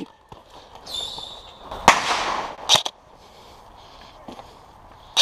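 Airsoft grenade going off about two seconds in: a loud sharp bang with a short echoing tail, then a second sharp crack just under a second later. A brief high tone comes about a second before the bang.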